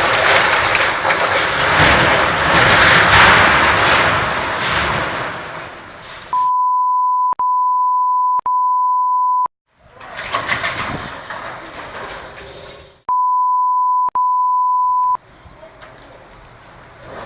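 Strong gusty wind blowing hard across the microphone for about six seconds, easing off after that. Two stretches of a steady high beep, the first about three seconds long with two short breaks, the second about two seconds, cut in over the wind like a censor bleep.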